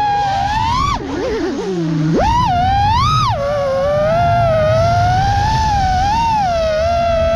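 A 6S FPV freestyle quadcopter's brushless motors whining, the pitch rising and falling with the throttle. About a second in the throttle is chopped and the whine drops low and wavers, then punches back up just after two seconds.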